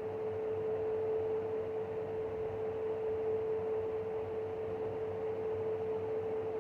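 Electric fan running with a steady whining hum, one unchanging tone held over the rush of air: the fan's weird noise.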